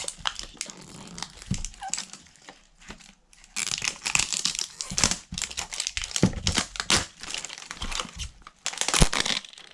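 Crinkly wrapping being peeled and torn off a toy tube by hand: irregular crackling with sharp snaps, busiest in the second half.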